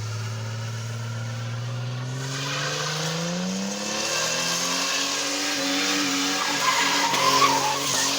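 Car engine revving up, its pitch rising over the first few seconds and then held at high revs, while the tyres skid and squeal under wheelspin in a burnout-style skid.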